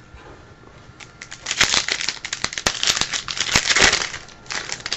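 A trading card pack wrapper being torn open and crinkled by hand, a dense run of sharp crackles from about a second and a half in, with a second shorter burst near the end.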